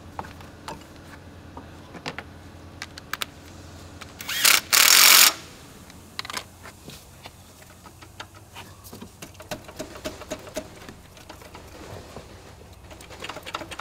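A hiss of spray in two short blasts about four seconds in, among scattered light clicks and knocks of tools and hands on a car's gear shift linkage.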